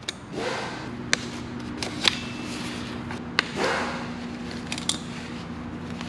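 Tools and bike parts being handled: four or five sharp clicks and light knocks spread over a few seconds, over a steady low hum.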